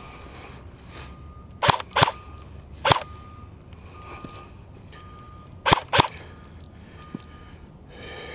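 Airsoft guns firing single shots with sharp snaps: three within about a second and a half, then a quick pair about three seconds later.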